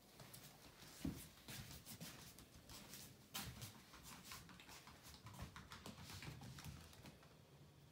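Faint, irregular footsteps and light clicking taps on a laminate floor, with a louder knock about a second in.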